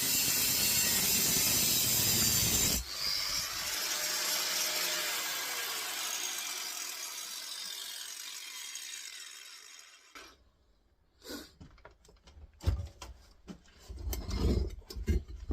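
Angle grinder with a new cutting blade finishing a cut through a small compressor's steel shell. It is switched off about three seconds in, and its whine falls away as the blade spins down over several seconds. Scattered light knocks and clatter of handling come near the end.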